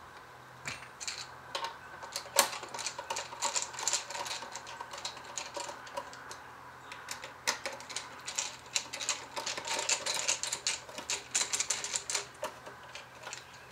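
Hand screwdriver driving T15 Torx screws into the metal housing of a PCM (engine computer): a long run of quick, irregular small metallic clicks and scrapes, thickest in the middle and second half.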